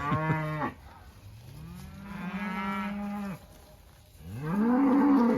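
Cattle in a moving herd mooing: a long, steady moo from about a second in, then another moo that rises and grows louder near the end.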